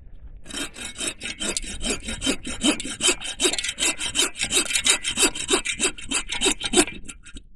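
Hand saw cutting through a log with quick, even back-and-forth strokes, about five strokes a second. The sawing stops near the end, as the piece comes off.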